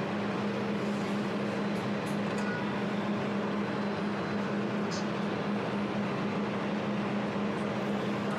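200-watt jewelry laser welding machine switched on and running: a steady machine hum with a constant low drone.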